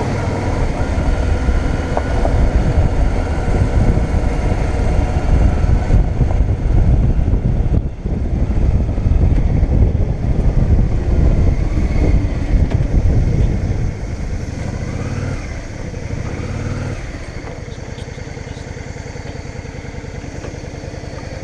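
Motorcycle engine running as the bike rides along. About 14 seconds in it drops in level as the bike slows, and from about 17 seconds it idles with an even pulse.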